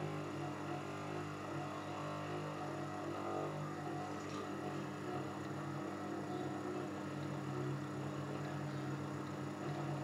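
A geared 12 V DC motor running steadily at a steady level, powered by a 12 V battery charger whose mains feed comes through a lighting dimmer at maximum. The charger's transformer hums from the DC the dimmer injects into the AC supply, and a 40 W lamp is wired in parallel to reduce the buzzing. The motor's noise resonates through a metal grill and the cabinet.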